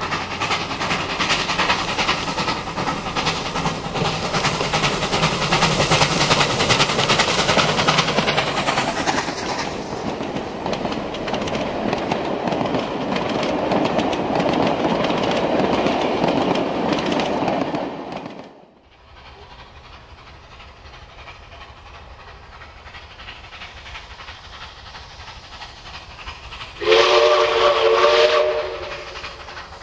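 NSW 59 class steam locomotive 5910 working past with its train: loud exhaust and the rattle of carriage wheels over the rail joints. After a quieter stretch, near the end, comes a short loud blast on the locomotive's steam whistle, several notes sounding together.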